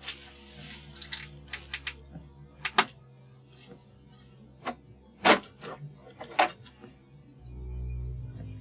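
Scattered sharp clicks and knocks of old wooden boards and a cabinet door being handled, a few of them loud, over a low steady music drone that swells near the end.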